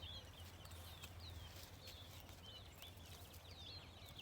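Faint birds chirping in the background: many short, quick calls one after another, over a low steady hum.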